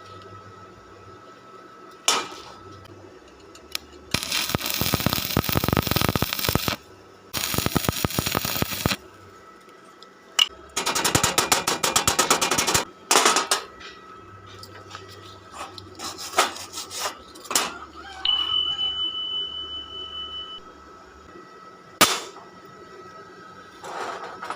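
Electric arc welding on iron rod, the arc crackling and sputtering in several short bursts of a second or a few seconds each. Sharp metallic knocks come once near the start and once near the end, and a brief high steady tone sounds in between.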